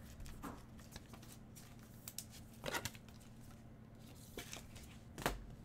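Trading card being slid into a clear plastic sleeve and rigid top loader by nitrile-gloved hands: a few short plastic rustles and scrapes, the loudest about two and a half seconds in and near the end.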